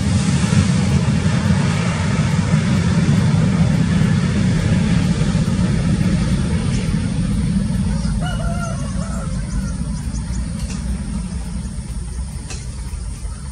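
Jet engines of a Boeing 737 airliner at takeoff power on the takeoff roll: a deep, steady rumble that slowly fades as the aircraft speeds away down the runway.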